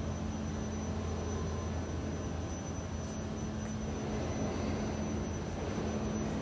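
Steady low machinery hum and drone in a factory hall, with a faint steady high-pitched whine above it.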